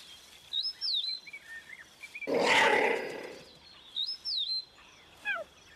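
Savannah birds chirping: a whistled rising-and-falling phrase twice, smaller chirps between, and a short falling run near the end. About two and a half seconds in comes a harsh, breathy burst lasting under a second, louder than the birds.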